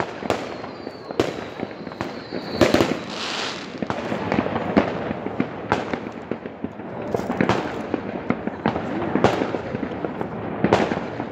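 New Year's Eve fireworks and firecrackers going off all around in an unbroken barrage of bangs and cracks. A high whistle runs for about two seconds, starting about half a second in.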